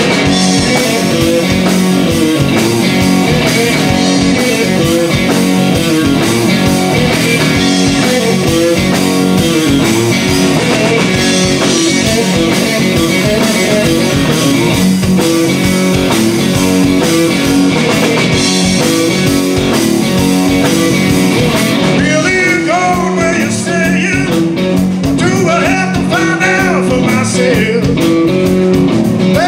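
A live blues-rock band: a Telecaster-style electric guitar, bass guitar and drums playing loudly and steadily. A male voice starts singing about three-quarters of the way through.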